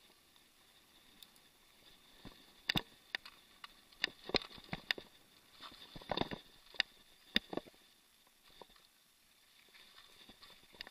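Mountain bike rattling over a rough dirt trail: a cluster of sharp, irregular clicks and knocks from about two to eight seconds in, over a faint steady hiss.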